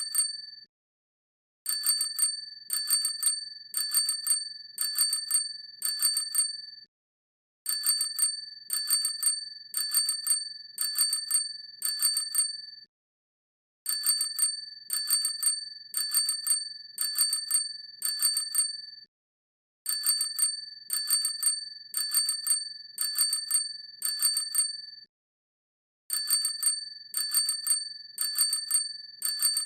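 Bicycle hand bell ringing in repeated 'tring' strokes, about one a second, in runs of five or so separated by short pauses.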